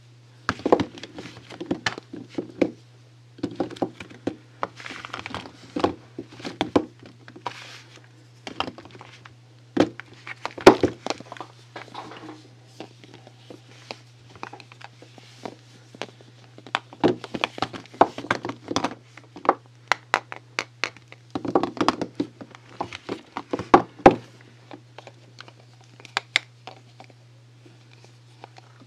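Hands unwrapping and handling soaps: packaging crinkling in short bursts, with irregular taps and light thunks as bars and boxes are picked up and set down, over a steady low hum.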